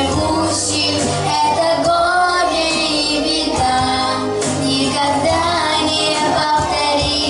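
A young girl singing a song over instrumental accompaniment with a steady bass line.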